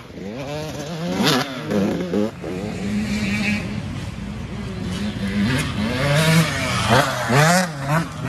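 Dirt bike engine revving on and off the throttle, its pitch rising and falling again and again, loudest about a second in and again near the end.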